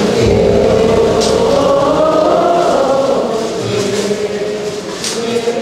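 Temple chanting: many voices chanting together in unison, in long held notes that slowly rise and fall.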